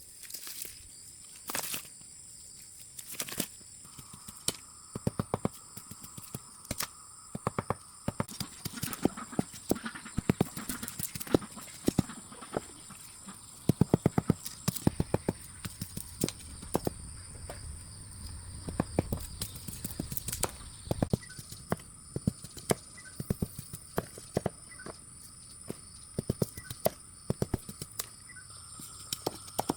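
Irregular runs of sharp clicks and knocks, some coming several a second, over steady high-pitched tones.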